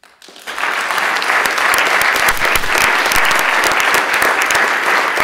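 Legislators in a large chamber applauding: dense clapping that swells up about half a second in and keeps going steadily.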